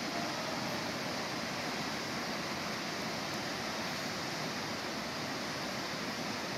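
Steady rush of a tiered mountain waterfall, heard close by as an even, unbroken hiss of falling water.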